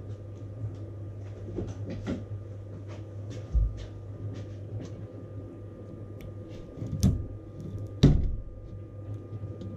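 Hand-tool handling on a 3D printer's hot end: scattered faint clicks, a dull thump about three and a half seconds in, then two sharp metal clicks about a second apart near the end as needle-nose pliers grip the hot end. A steady low hum runs underneath.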